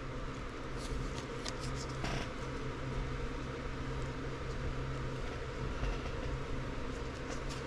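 Steady low mechanical hum with one constant low tone under a soft noise, the kind a running fan or air-conditioning unit makes; a few faint light clicks about two seconds in.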